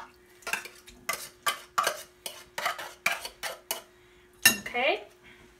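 A metal utensil scraping and clinking against an opened tin can and a glass bowl while digging out canned cod liver, about a dozen quick clinks over three seconds.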